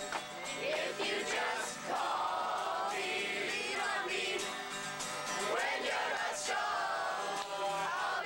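Background music: a song with singing voices over instrumental accompaniment.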